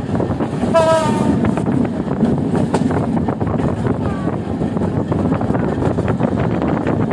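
Steady rumble and rattle of a moving vehicle, heard from on board, with a short, slightly falling horn toot about a second in.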